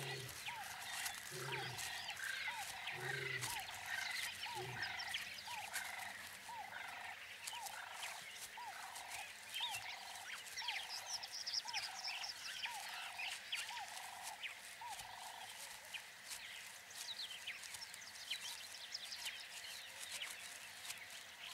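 African bush ambience of wild animal calls: one call repeated about twice a second for some fifteen seconds, a few deep calls about a second and a half apart in the first five seconds, and high chirps throughout.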